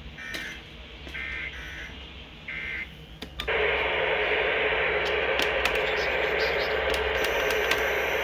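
Three short bursts of EAS digital data tones coming over a radio, about a second apart. About three and a half seconds in, a loud steady static-like noise takes over.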